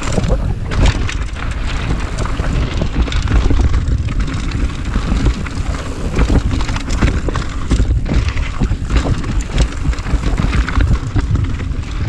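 Mountain bike descending a rocky, gravelly trail at speed: tyres rumbling over stones with frequent short clattering knocks from the bike over bumps, under heavy wind noise on the camera microphone.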